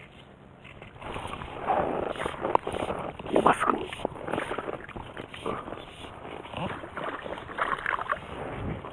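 Irregular water splashing and sloshing, starting about a second in, from a small black bass hooked on a fly rod and thrashing at the surface close to the float tube.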